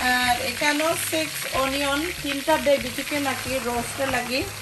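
Oil and ginger-garlic masala paste sizzling in a nonstick wok as it is stirred with a spatula, with sliced onions tipped into the pan near the end. A voice singing a melody sounds over the sizzle until near the end.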